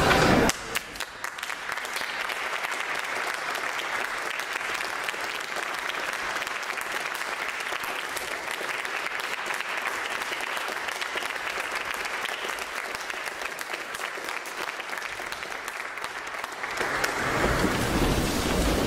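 Audience applauding, a steady dense clapping. Near the end a louder, fuller sound with more low end comes in over it.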